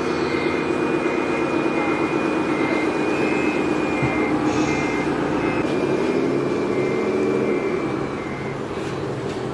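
Heavy earthmoving machine's diesel engine running, with its reversing alarm beeping at an even pace until shortly before the end. The engine revs up about six seconds in, then drops back.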